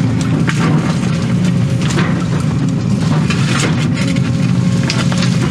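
Case excavator's diesel engine running steadily under load, heard from inside the cab, with several sharp cracks and crunches as the bucket tears into brush and roots.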